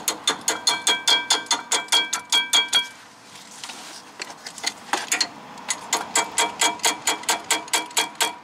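Rapid, even metal-on-metal tapping, about four strikes a second with a short ringing ping on each, as a hand tool used as a hammer drives the parking brake cable's retaining clip into place at a rear brake caliper. The tapping stops for about two seconds partway through, then starts again.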